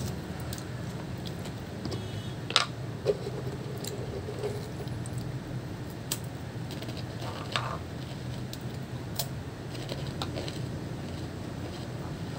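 Scattered small clicks from pulling apart and eating pomelo segments by hand, over a steady low rumble.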